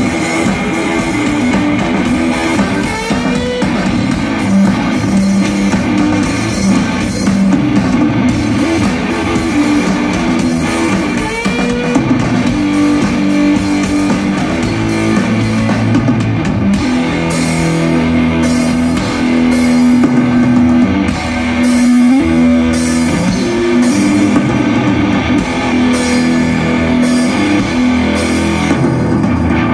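Live rock music from a two-piece band: electric guitar playing over a drum kit, loud and continuous.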